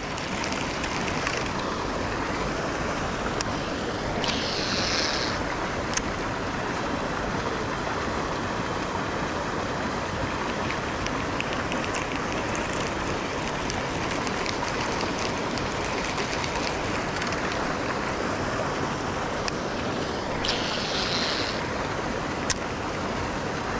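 Steady rushing noise, with two short higher hisses, one about four seconds in and one near the end, and a few faint clicks.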